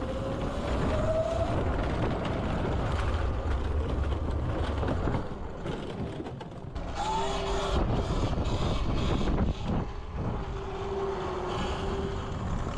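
Wind rushing over the microphone while riding an e-bike, with a faint whine from the bike that rises in pitch in the first second or two.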